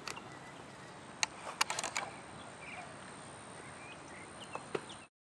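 Outdoor softball-field ambience with several sharp knocks and taps, bunched a little over a second in and again near the end. The sound cuts off abruptly just before the end.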